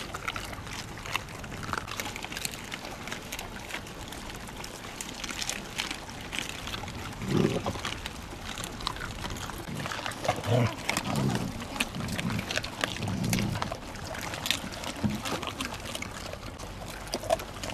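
Dogs eating raw chicken pieces on gravel: scattered crunching and clicking of chewed bones and stones throughout, with a few short low growls around the middle.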